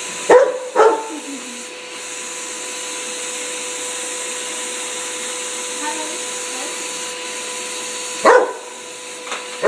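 A Rottweiler barking at a running vacuum cleaner: two sharp barks near the start and two more near the end, over the vacuum motor's steady whine.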